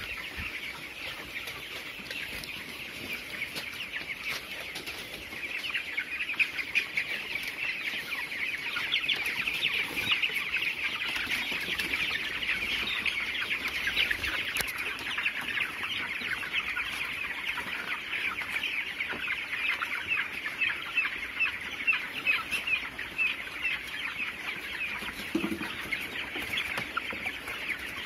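A flock of 22-day-old broiler chickens peeping and clucking in a steady, dense chatter of many overlapping short calls, growing louder about five seconds in.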